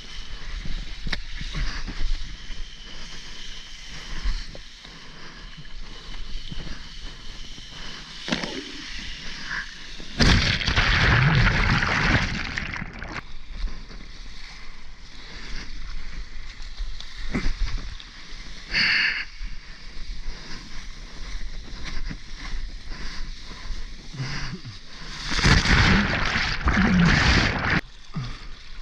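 Water sloshing and splashing against a foam soft-top surfboard as it is paddled through small waves, picked up close to the water surface. Two louder rushes of water come about ten seconds in and again near the end.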